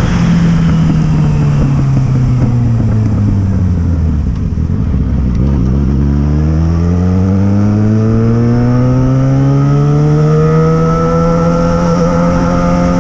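Yamaha XJ6 inline-four engine running loudly, its exhaust note falling steadily as the revs drop for about five seconds, then climbing again and levelling off at a steady higher pitch.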